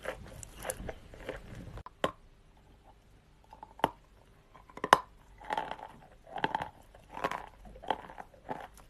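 Dry clay being bitten and chewed close to the microphone. Dense crunching gives way, about two seconds in, to a few sharp single bites. Then comes steady crunchy chewing, about one chew every three quarters of a second.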